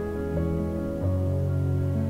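Background music of slow, held notes; a lower note comes in about a second in.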